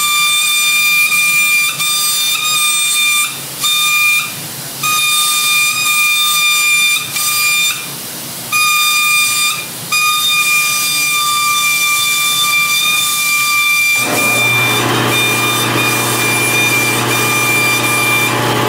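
A steady high-pitched whistle, cut off briefly about four times in the first ten seconds. About fourteen seconds in, a lower steady machine hum with rough noise comes in and takes over.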